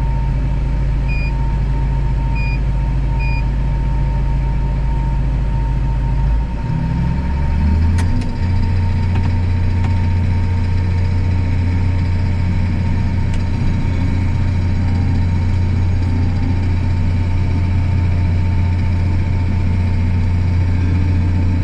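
Kubota's engine running steadily, its pitch stepping up about seven seconds in as it picks up speed. Three short high beeps sound in the first few seconds.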